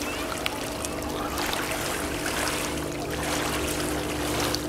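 Small waves of the Danube washing onto a pebble shore, the rush of water swelling about every second and a half, over a steady low hum.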